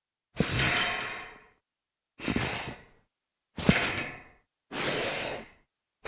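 A series of separate slides across a metal grate, each a sudden gritty scrape that fades out within about a second, with short silent gaps between them. Four come in turn, and a fifth begins at the very end.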